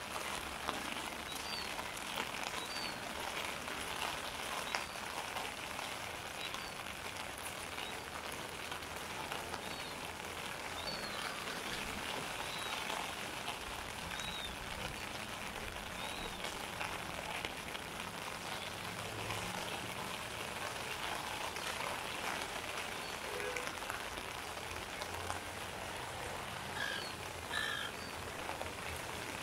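Steady rain falling and pattering on wet surfaces, a dense even hiss of drops. A few short high chirps sound now and then, with a couple of clearer calls near the end.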